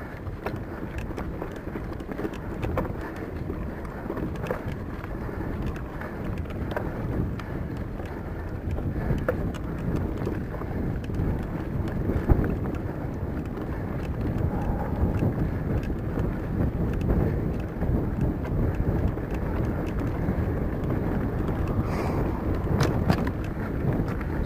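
Wind buffeting the microphone: a continuous, uneven low rumble with a few faint clicks.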